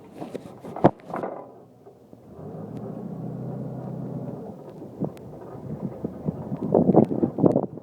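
A truck engine running with a steady low hum, with a sharp thump about a second in and bursts of rumbling wind and handling noise on the microphone near the end.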